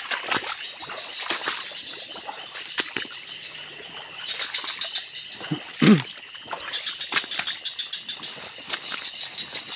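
Footsteps and rustling through wet swamp undergrowth at night, a run of crackles and brushing with some sloshing, over steady high-pitched insect chirring. About six seconds in comes the loudest sound, a short low one that drops in pitch.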